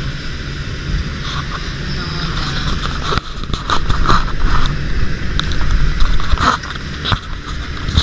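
Road noise inside a moving car: a steady low rumble of engine and tyres, with a few brief knocks.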